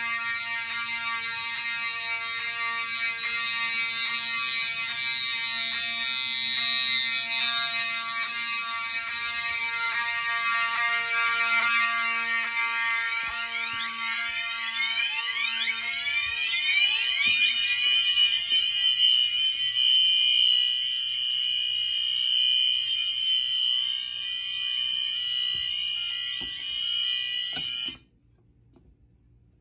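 Several fire alarm horns and horn strobes sounding together on a test system after the pull station has been pulled, a mix of steady electronic and pulsing tones, with repeated rising whoop sweeps joining about halfway through. Everything cuts off at once a couple of seconds before the end as the system is reset.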